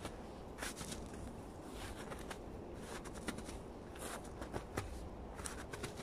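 Footsteps crunching through snow at a walking pace, about one step a second.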